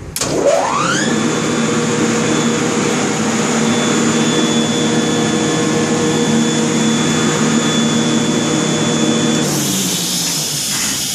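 150-horsepower electric motor of a Sullair LS-25 rotary screw air compressor starting: a click, then a rising whine as it spins up over about a second, settling into a steady running hum with whining tones. Near the end a loud hiss of air comes in.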